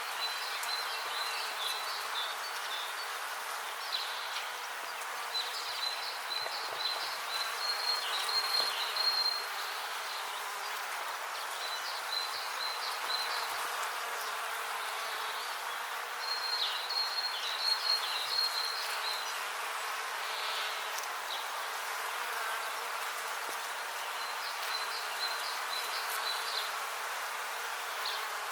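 Many bees buzzing together in a steady, dense hum. Short bouts of high, repeated chirping notes come and go over it every few seconds.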